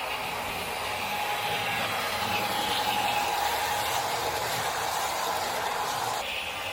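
H0-scale Os.Kar ALe 582 model electric train running on the layout with its DCC sound decoder playing: a steady running noise with a humming tone that grows louder through the middle and changes abruptly near the end.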